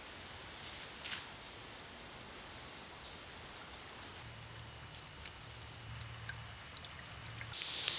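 A few soft rustles and clicks as a dead bird's carcass is picked apart by hand, over a quiet outdoor background. A loud hiss comes in just before the end.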